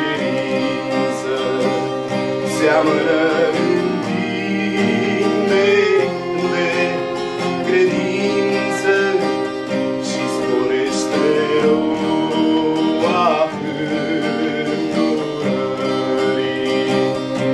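Violin playing a melody over acoustic guitar accompaniment, an instrumental passage of a song with no sung words.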